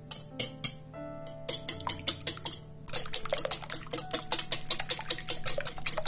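Metal wire whisk beating raw eggs in a glass bowl: a few separate clicks at first, then from about halfway through a rapid, steady clinking of the wires against the glass.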